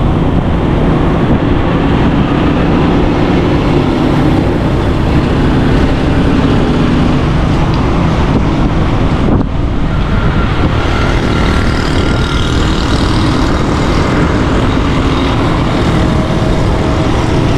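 Road travel noise on a city street: a vehicle's engine running steadily, with tyre noise and wind buffeting the microphone. The sound dips briefly about halfway through.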